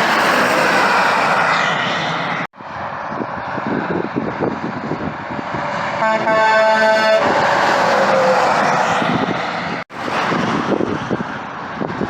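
Heavy highway traffic, with big trucks passing in a steady roar of tyres and engines, broken by two sudden cuts. About halfway through, a truck air horn blasts for about a second, and a pitched tone falls away as the vehicle passes.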